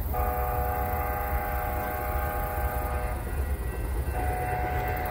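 Steam whistle of Canadian Pacific Kansas City steam locomotive 2816 sounding a chord in two blasts. The first lasts about three seconds; the second starts about a second later. A steady low rumble runs underneath.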